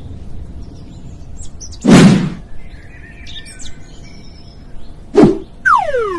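Cartoon sound effects over light bird chirping: a loud thump about two seconds in, a short thud just after five seconds, then a whistle that slides down in pitch and starts to slide back up.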